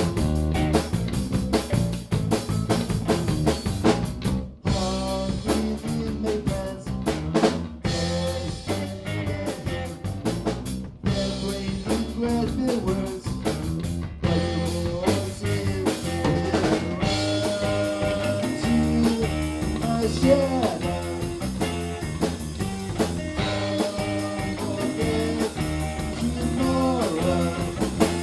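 A rock trio of drum kit, bass guitar and guitar playing a song together, the drums keeping a steady beat with rimshots, broken by two short drops in the playing in the first half.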